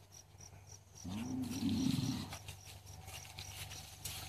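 A low animal call about a second in, lasting just over a second, rising in pitch at first and then held.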